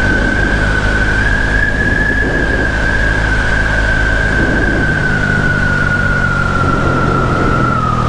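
Loncin LX300 enduro motorcycle's 292 cc engine running steadily while riding, its note shifting about five seconds in. A steady high whine that drifts slightly in pitch sits over the engine the whole time.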